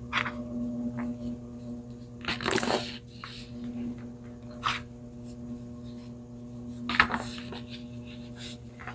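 Baking soda being crushed and squeezed by hand, a few separate crunchy, crumbly bursts with the loudest about two and a half seconds in and another near seven seconds, over a steady low hum.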